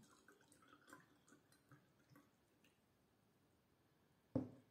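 Faint scattered ticks, then a single sharp knock near the end as a glass tumbler is set or knocked against a wooden tabletop.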